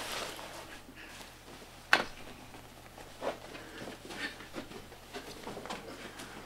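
A single sharp knock about two seconds in, then soft, irregular footsteps as a person walks away across the floor.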